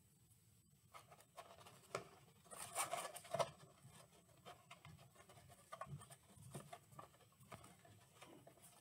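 Faint rustling and scratching of paper, string and the cardboard of a tissue box being handled while a string is threaded through and knotted, with a busier cluster of rustles about three seconds in.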